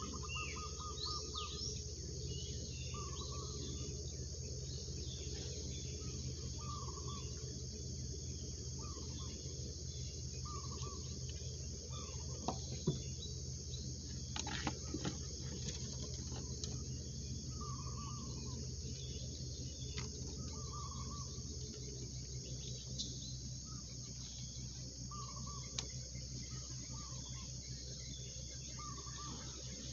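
Steady chorus of insects from the riverside vegetation, with a short call repeating every couple of seconds over it. A few faint clicks sound about halfway through.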